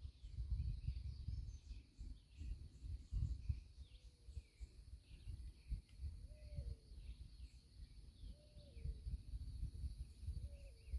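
Outdoor ambience: many small birds chirping over a steady high insect drone, with a lower call repeated three times about two seconds apart. A loud low rumble comes and goes throughout, typical of wind buffeting the microphone.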